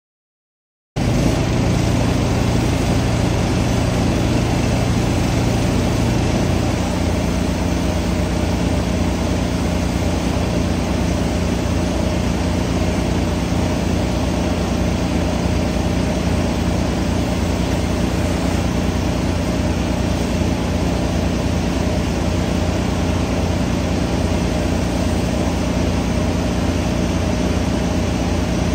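Small engine running steadily at a constant speed, cutting in suddenly about a second in, its low hum changing slightly about six seconds in.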